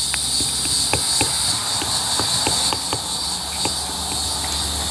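Steady high-pitched insect chorus, with scattered light clicks at irregular intervals.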